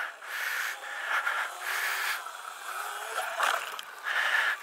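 Sur-Ron Light Bee electric dirt bike ridden off a concrete loading ramp: rushing noise, a faint motor whine rising in pitch, and a sharp knock as it lands about three and a half seconds in.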